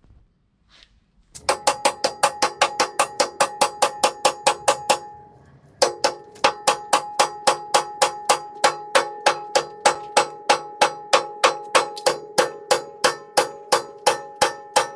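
Hammer blows on a steel pumping-unit crank arm, driving it onto the gearbox crankshaft: a fast, even run of about four or five strikes a second, each with a bright metallic ring. The blows stop for under a second near the middle, then go on.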